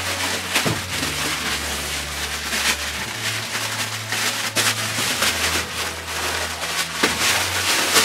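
Plastic packaging crinkling and rustling in quick, irregular crackles as a large display panel is pulled out of its plastic bag and its protective wrap is handled.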